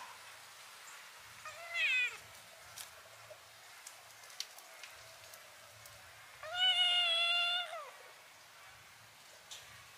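Kitten mewing twice: a short mew that drops in pitch about two seconds in, then a longer, steady mew of over a second that falls away at its end.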